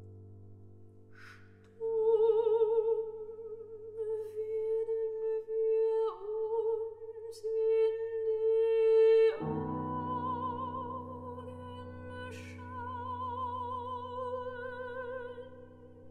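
Classical art song: a soprano sings slow, long-held notes with vibrato over piano and violin. A long note runs from about two seconds in, and about nine seconds in the accompaniment moves to a fuller new chord with a higher line above.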